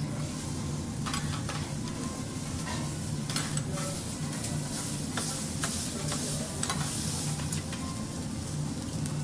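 Food sizzling on a teppanyaki iron griddle, with short clicks and taps of metal spatulas against the plate.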